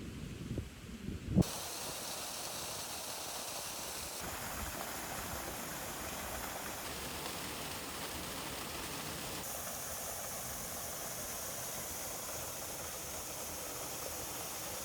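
Steady rush of a small waterfall's falling water, its tone shifting slightly three times. For about the first second and a half, wind buffets the microphone, ending in a sharp bump.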